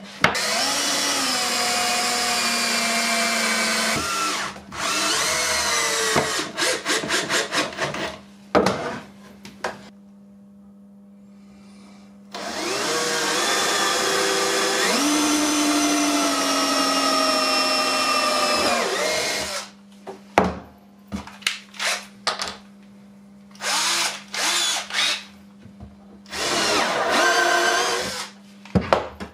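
Cordless drill running as it drills into a wooden board: several runs of a few seconds each with a steady motor pitch, then a string of short trigger bursts in the last third.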